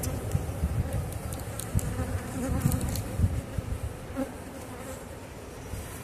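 Honeybees buzzing steadily over the open top bars of a hive, with an uneven low rumble underneath.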